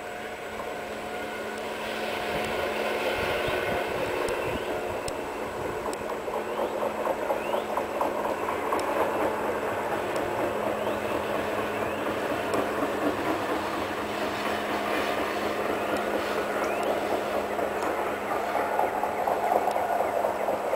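Railroad maintenance-of-way track machines of an undercutter gang travelling along the rails in convoy: engines running with a steady hum under a dense rattle and clatter of wheels on the track. The sound grows louder over the first few seconds and then holds.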